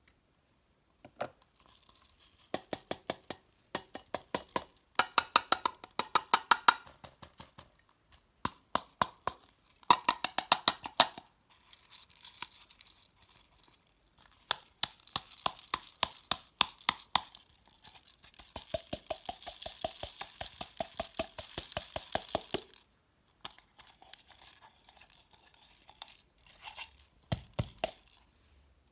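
Store-bought floam slime worked by hand, its foam beads giving rapid runs of sharp crackling clicks, in bursts separated by short pauses, with a longer dense crackling stretch past the middle.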